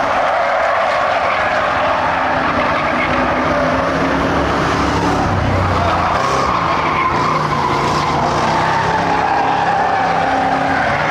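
Ford Crown Victoria V8 stock cars racing around a dirt oval, several engines running hard at once, their pitch rising and falling as the cars work through the turns.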